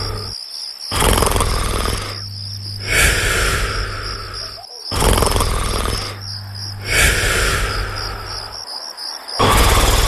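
Cartoon snoring in long, regular breaths, one swell about every two seconds with short pauses between, over steady cricket chirping.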